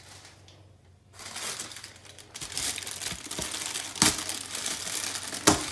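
Thin plastic bag of seed potatoes crinkling as it is handled, starting about a second in, with two louder sharp crackles near the end.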